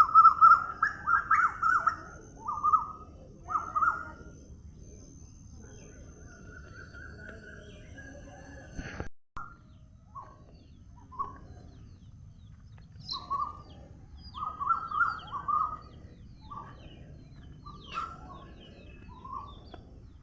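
Pet parrot calling in short, repeated chirps, in quick runs with a quieter spell in the middle; the sound cuts out abruptly for an instant about nine seconds in.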